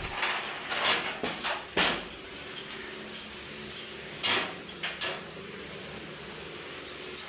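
Sharp metal clanks and knocks from tools and engine parts being handled and set down: a quick run of them in the first two seconds, then another few a little after four seconds in.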